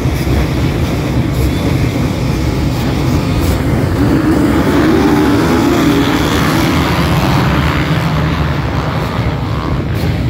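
A pack of motocross dirt bikes running at high revs, many engines blending into one dense drone that swells louder around the middle.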